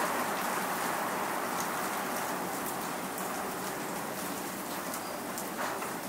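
Steady rain shower: a continuous hiss of rainfall with scattered sharp ticks of individual drops striking a surface.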